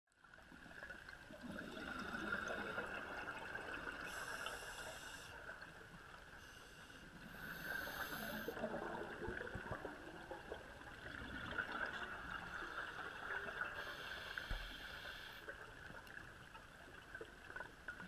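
Underwater sound picked up by a GoPro in its housing: a scuba diver's open-circuit regulator breathing close by, with three bursts of hiss and bubbling over a steady muffled water hiss.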